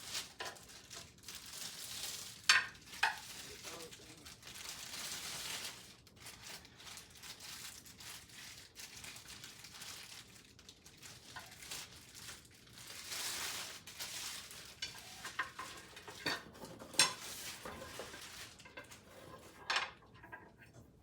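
Rustling and handling noise from lamp parts and packaging being worked with during assembly, broken by several sharp clicks and knocks of hard parts, the loudest a few seconds in and again near the end.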